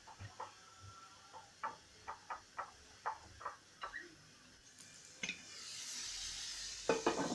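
A run of light clicks and taps from kitchen utensils, then food starting to sizzle in a hot pan about six seconds in, with a couple of louder clatters near the end.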